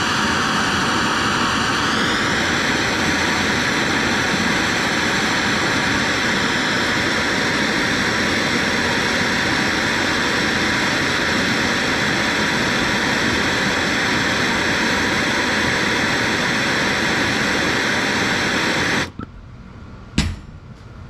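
Gas torch flame burning steadily with a loud hiss and a faint whistle that steps up slightly in pitch about two seconds in, as it reheats a steel punch red-hot. The flame stops suddenly near the end, followed by a single knock.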